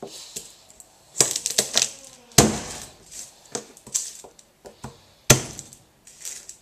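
The flat of a chef's knife is pounded down on garlic cloves on a plastic cutting board to loosen their skins. There are three sharp knocks, with lighter taps and clicks of the cloves and knife being handled between them.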